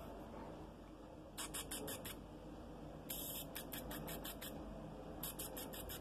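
Male canary pecking and nipping at a finger through the cage bars. It makes faint, scratchy, high ticks in three quick runs of about five or six each.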